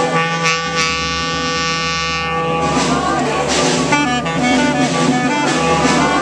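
Clarinet played close up: one long held note for about two and a half seconds, then a run of shorter, changing notes.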